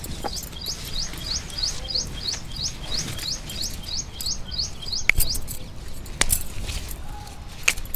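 A small bird repeating a short rising chirp, about four a second, for the first four seconds. Three sharp clicks follow in the second half.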